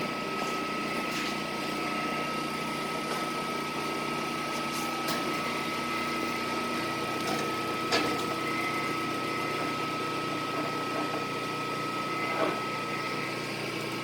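Victor lathe running steadily with its spindle at the low 65 rpm setting: an even machine hum with a constant high tone over it. Two short clicks, about eight and twelve and a half seconds in.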